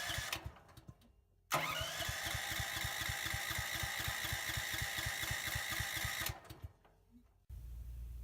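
Electric starter cranking a new propane-fuelled portable generator engine on its first start, choke off: a short crank, then a longer crank of about five seconds with a regular chug of compression strokes, stopping without the engine catching.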